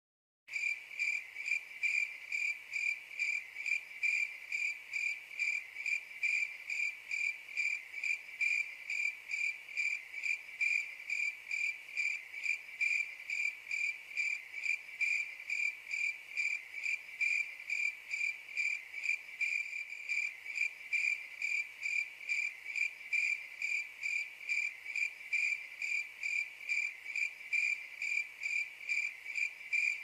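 A cricket chirping in a steady, even rhythm of about two to three chirps a second, each chirp a single high pitch. It starts about half a second in.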